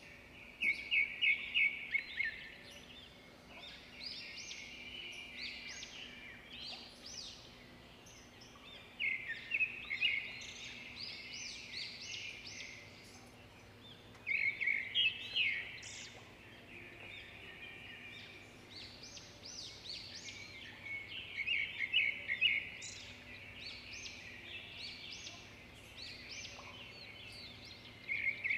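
A bird chirping in quick trilled bursts about every six or seven seconds, with softer scattered chirps in between. A faint steady low hum runs underneath.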